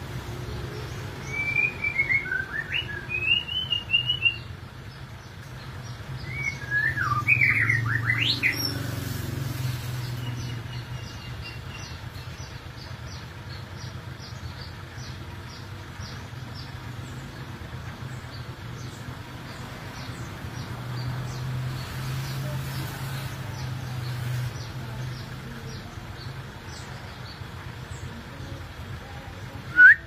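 White-rumped shama (murai batu) singing: two bursts of quick rising and falling notes in the first nine seconds, then a long run of faint, short high chips, about two a second. A steady low hum runs underneath.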